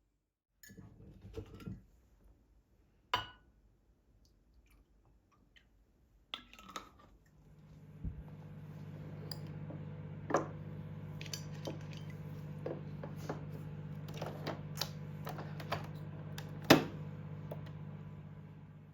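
Light clicks and knocks of kitchenware being handled, then a steady low hum that sets in about seven seconds in and fades out near the end, with sharp clinks over it.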